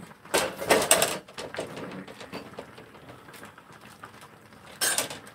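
A pot of clam sujebi boiling, with a rapid crackle of small ticks like rain: the clams at the bottom of the pot popping as it boils. Near the start a metal pot lid clatters as it is set down, and another short clatter comes near the end.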